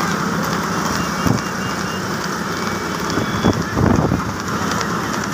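Wind buffeting the microphone of a moving motorcycle, over the steady running of motorcycle engines close by.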